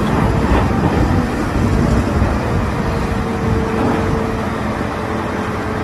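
Wheel loader engine running steadily with a low rumble.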